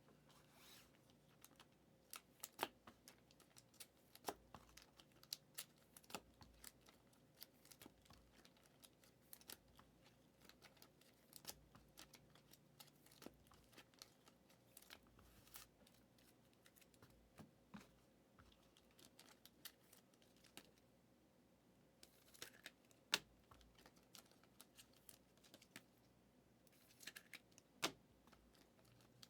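Faint handling of trading cards: scattered sharp clicks and snaps as cards are flipped and set down, with two short rustles of a pack wrapper tearing or crinkling near the end.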